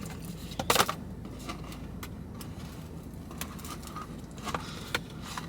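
Handling noises: a few short clicks and rustles, the loudest about a second in, over a steady low hum.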